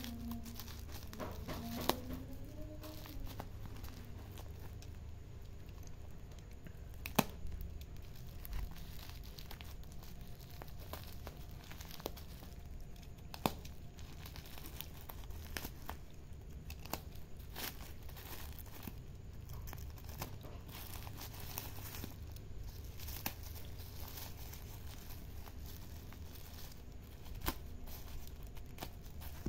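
Black plastic parcel wrapping and brown packing tape being cut with a utility knife and torn open by hand, crinkling, with scattered sharp clicks and snaps.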